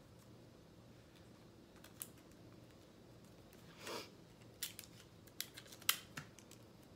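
Faint sticky tape and paper being handled as pieces are taped down. There is a short rasp of tape pulled from the roll about four seconds in, then a quick run of sharp clicks and crinkles, with one lone click earlier.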